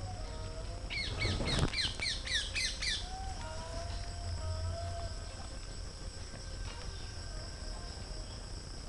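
A bird calling a quick run of short, downward-slurred notes, about four a second for two seconds starting about a second in, over a steady high-pitched drone of insects. A brief rustle comes partway through the bird's run.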